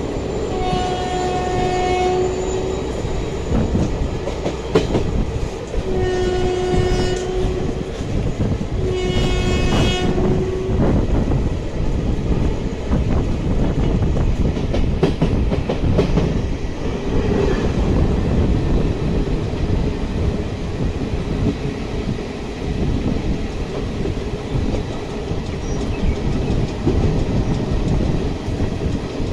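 Train running at speed, heard from on board: a steady rumble and clatter of wheels on the rails. A locomotive horn sounds three long blasts in the first ten seconds.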